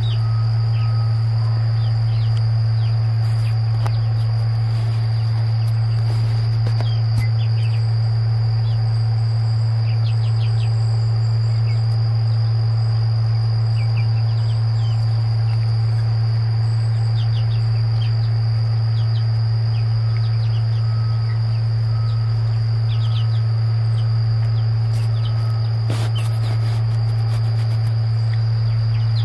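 Insects drone steadily with a high, unbroken tone while young chickens peep in short scattered chirps. Under both runs a loud, constant low hum.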